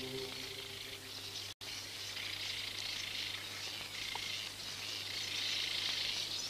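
Held music tones die away in the first second and a half. After them comes outdoor summer ambience: a steady high chirring of insects with bird chirps.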